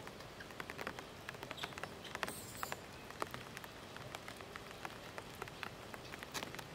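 Light rain pattering in irregular sharp ticks on leaves and rock, with a short high hiss a little past two seconds in.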